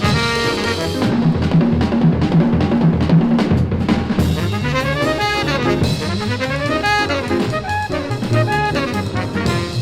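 Hard-bop jazz quintet of trumpet, tenor saxophone, piano, bass and drums, played from a vinyl record. A held horn note at the start gives way to about three seconds of busy drum-kit playing, then the horns come back in with fast runs over the rhythm section.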